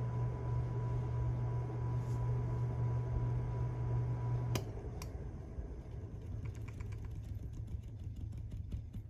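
Motor of a 1962 Hunter R-52 ceiling fan running with a steady low hum and a thin high whine. A sharp click about four and a half seconds in cuts the hum off, a second click follows, and then a run of faint light ticks.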